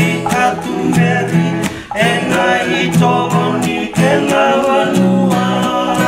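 Men singing a Fijian song together in harmony, accompanied by steadily strummed acoustic guitars.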